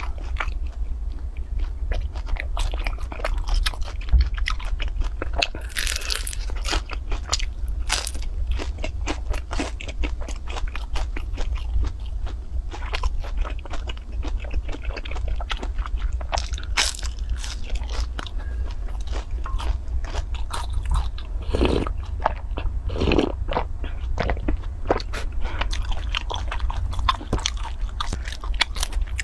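Close-miked eating: bites into crispy fried cakes, with many sharp crunches and crackles followed by chewing, over a steady low hum.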